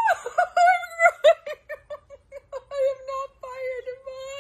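A woman wailing and whimpering in pain from the burn of a spoonful of sriracha hot sauce: quick, broken cries in the first half that settle into a longer held moan.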